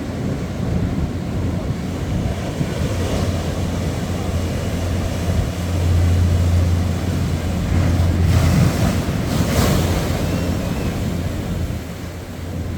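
Ocean waves breaking and washing up on a beach, with wind buffeting the microphone as a low rumble. The surf swells louder in the second half, with two brighter washes of breaking water close together.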